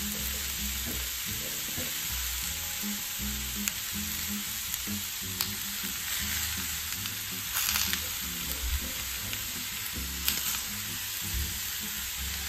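Chicken searing in a hot cast iron skillet: a steady sizzle throughout. A spice shaker rattles briefly twice, near the middle and later on, as seasoning is sprinkled over the chicken.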